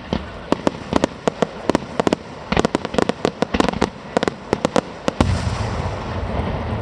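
Fireworks display going off: a rapid string of sharp firework bangs, several a second. About five seconds in, it gives way to a louder, continuous rumbling din.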